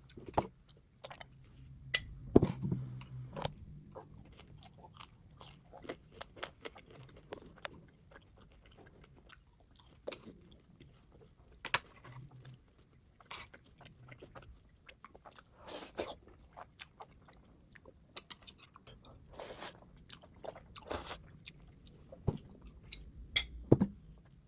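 Close-miked eating: biting and chewing with irregular crisp crunches, sped up to double speed.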